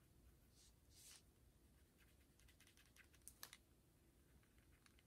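Near silence, with faint rubbing strokes and light taps from a Wink of Stella brush pen worked over a paper card. A few small clicks come about three and a half seconds in.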